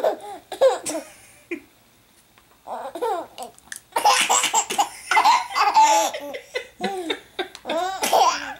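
Baby laughing in repeated bursts at a dog eating, a few short bursts at first, then after a brief pause a longer, louder run of laughter from about three seconds in.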